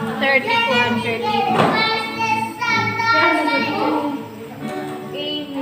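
Indistinct voices of women and children talking, mixed with music that has singing in it.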